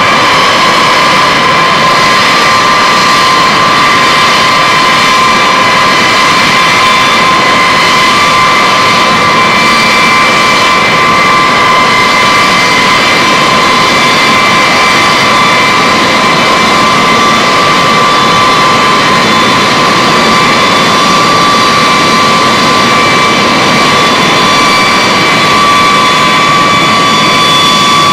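B-52H Stratofortress's Pratt & Whitney TF33 turbofan engines running with a loud, steady high whine over a broad rushing noise.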